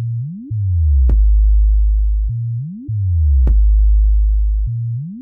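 Electronic bass-test music: deep synthesized sub-bass in a repeating phrase about every two and a third seconds, a quick rising sweep, a falling slide that lands with a sharp click, then a long held low note.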